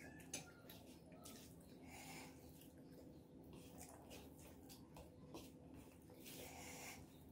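Faint wet chewing and lip-smacking clicks, mixed with soft squishing as rice and curry are kneaded by hand, over a low steady hum.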